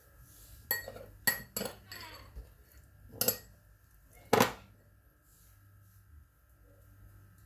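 A metal spoon clinking against a ceramic bowl while minced beef is scooped out of it: five sharp clinks with a short ring, the loudest about four seconds in.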